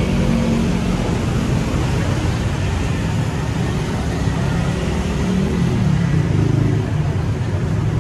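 Wind buffeting the microphone in a steady low rumble, over the hum of street traffic.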